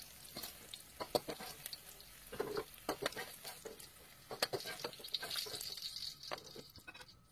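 Diced zucchini frying in oil with a faint sizzle, while a perforated skimmer clicks and scrapes against the pan as the pieces are scooped out.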